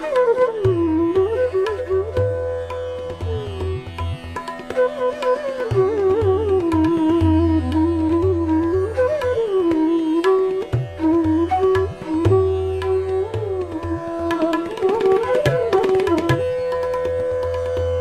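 Instrumental background music in an Indian classical style: a gliding, ornamented melody line over a steady drone, with hand-drum strokes.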